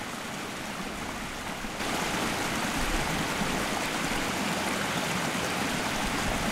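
Water running in a small stream, a steady rushing that gets louder about two seconds in.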